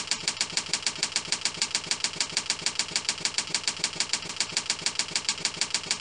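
Typing sound effect: rapid, evenly spaced keystroke clicks, about eight a second.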